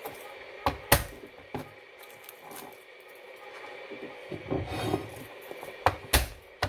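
Chef's knife knocking on a plastic cutting board while garlic cloves are worked: a handful of sharp knocks, the loudest about a second in and several more near the end, with soft rubbing and scraping in between.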